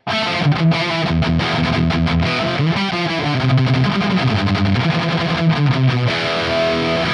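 High-gain distorted electric guitar through a Laney GH100TI all-tube amp head and a Mesa cabinet, playing a chugging low riff, then striking a chord that rings on near the end.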